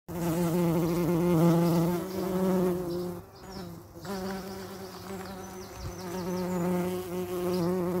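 Bees buzzing close by, a steady wavering hum that drops away for about a second around the middle and then comes back.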